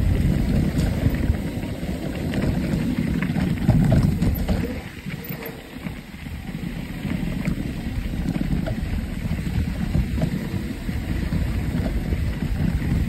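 Wind buffeting the microphone and mountain bike tyres rumbling over a dirt singletrack trail, with scattered clicks and rattles from the bike. The rumble eases briefly about five seconds in, then picks up again.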